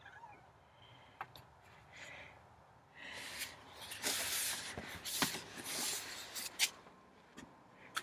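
Domestic cat meowing faintly a few times, then rustling, handling noise and sharp knocks as a door is opened, from about three seconds in.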